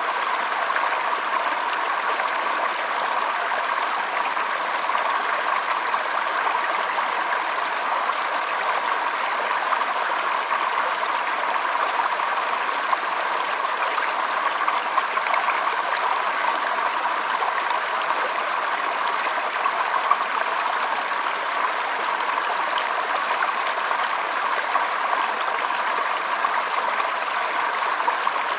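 Shallow stream trickling and burbling steadily over its bed, an even rushing of running water.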